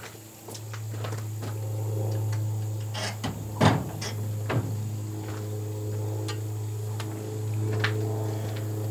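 A few sharp knocks and clunks, the loudest about three and a half seconds in, from a .45 muzzleloader bullet being run through a sizing die and loading gear being handled. A steady low hum runs underneath.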